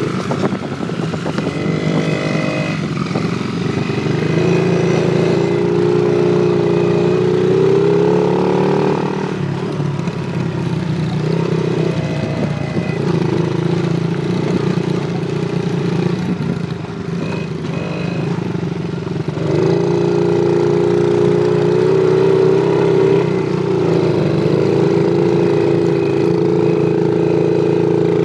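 1978 Suzuki JR50 mini motorcycle's small two-stroke single-cylinder engine running, its pitch rising and falling as the throttle opens and closes.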